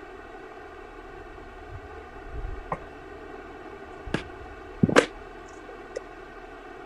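A handful of sharp knocks and clicks from a phone being handled and repositioned over a notebook, papers and a laptop. The loudest is a double knock about five seconds in. A steady buzzing hum runs underneath.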